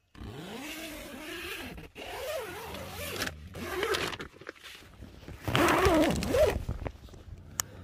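A tent zipper being pulled in several separate strokes, each a buzzing whirr with a wavering pitch; the longest and loudest stroke comes a little past the middle.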